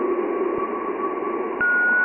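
Radio-static-like space sound presented as the sound of Jupiter: a steady hiss with a faint held tone, then a loud steady high tone starts about a second and a half in.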